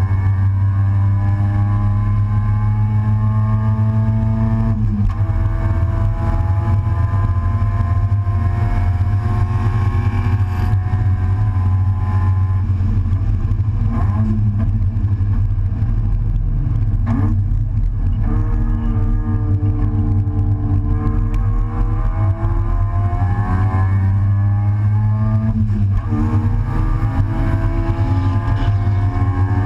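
Race car's engine heard from inside the stripped open cockpit at speed, its pitch climbing steadily and breaking for a shift or lift about five seconds in, twice in the middle and again near the end. A steady low rumble of wind and road noise runs underneath.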